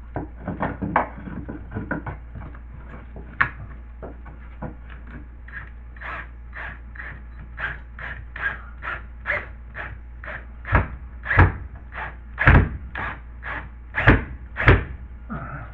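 Repeated knocking against a drywall patch piece being worked into place, about two or three knocks a second, with several heavy thumps in the last few seconds.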